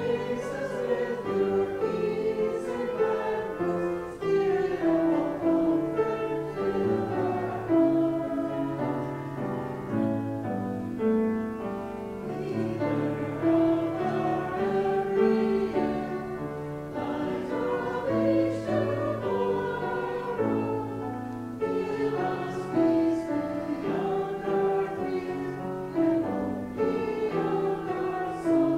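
Choir and congregation singing a hymn together, with piano accompaniment.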